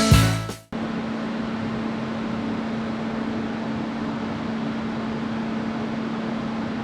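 Rock music fades out within the first second, then a steady electrical hum with a fan-like hiss runs on without change.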